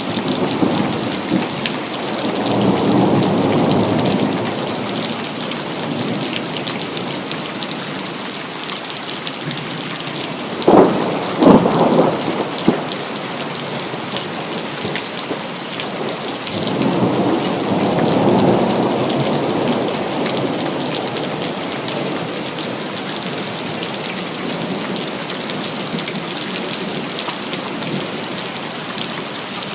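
Steady rain with a thunderstorm: thunder rolls in twice as a swelling rumble, and about eleven seconds in there is a short burst of sharp, loud cracks, the loudest sound here, like a close thunderclap.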